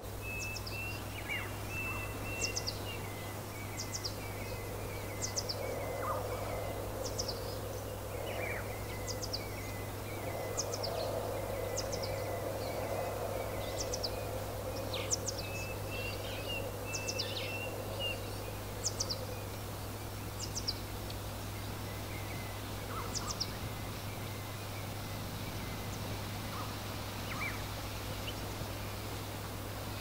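Songbirds chirping: short, sharp high notes repeating every second or two, with a lower warbling trill now and then, over a steady background of wind noise.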